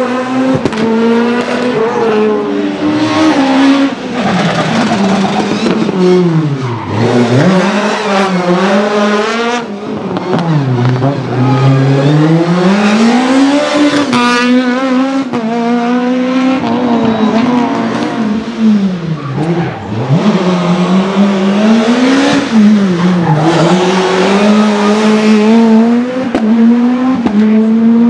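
Several rally cars driven hard in turn, among them a Peugeot 306 Maxi and a Skoda Fabia S2000. Their engines rev high and drop away sharply several times under braking and downshifts, then pick up again.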